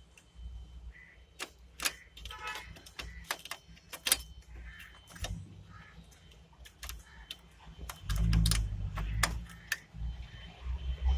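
Irregular sharp clicks and light knocks of hands working plastic cable connectors and printer parts while the scanner and display cable is connected to the printer's formatter board, with a low handling rumble in the last few seconds.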